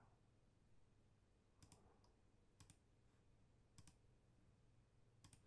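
Faint computer mouse clicks: four quick double clicks about a second apart, over near silence.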